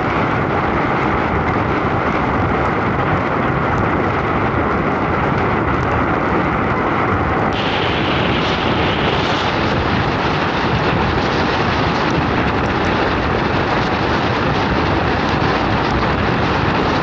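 Steady rushing noise of wind on the microphone of a moving vehicle driving through a severe storm. About halfway through, the hiss suddenly turns brighter and harsher and stays that way.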